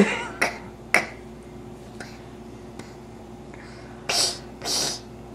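Mouth noises from a young child: a few sharp clicks near the start, then two short breathy hisses about four seconds in.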